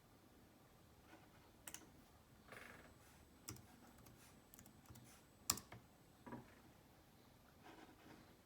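Faint, scattered clicks and light taps, about seven in all, with the sharpest one about five and a half seconds in, over near silence.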